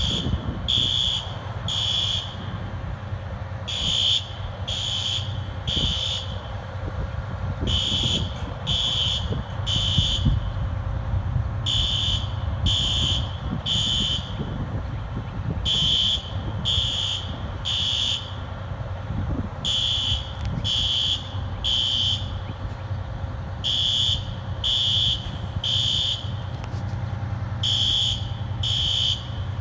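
System Sensor fire alarm horns sounding the temporal-three evacuation pattern: three loud blasts about a second apart, the group repeating every four seconds. Wind rumbles on the microphone underneath.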